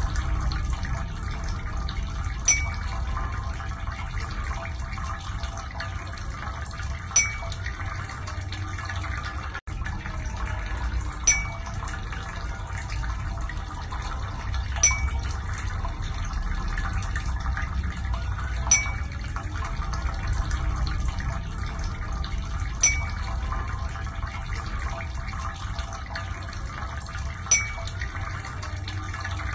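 Steady running-water noise with a short bright ping about every four seconds.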